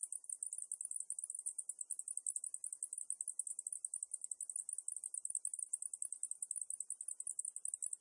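Cicadas singing in a steady high-pitched chorus, a rapid, even pulsing buzz.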